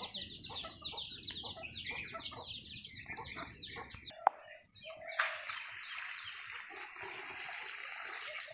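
Chicks peeping rapidly in short falling calls for the first four seconds, then a single metallic knock. About five seconds in, water from a metal bucket starts pouring steadily onto paddy in a metal pot, soaking the paddy for parboiling.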